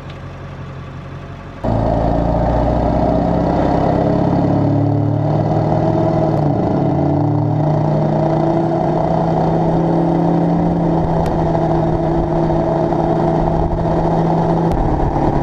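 Ford 7.3 Powerstroke turbo-diesel V8 through a straight-piped 4-inch turbo-back exhaust with no muffler: idling softly at first, then about a second and a half in, much louder as the truck pulls away and runs hard under load, its pitch steady apart from a brief dip around the middle.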